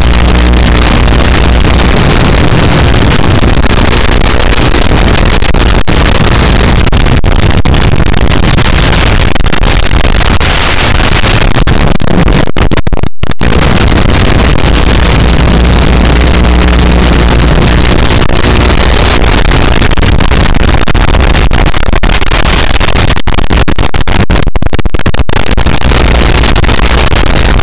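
FPV quadcopter's motors and propellers buzzing loudly, with the pitch rising and falling as the throttle changes. The sound cuts out briefly about halfway through and a few times near the end.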